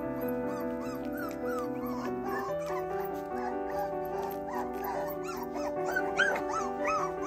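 Four-week-old mini goldendoodle puppies whimpering and yipping in short, high cries that rise and fall, more of them in the second half, over background music with long held notes.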